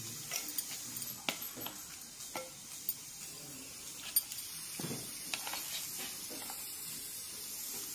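Fresh coriander leaves and green chillies being handled and dropped into a steel mixer-grinder jar: soft rustling of the leaves with scattered light clicks and taps against the steel, over a faint steady hiss.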